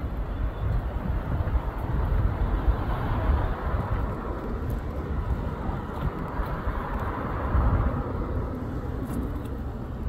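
Road traffic noise: cars passing on a nearby road, one swelling and fading in the second half, over a low, uneven rumble.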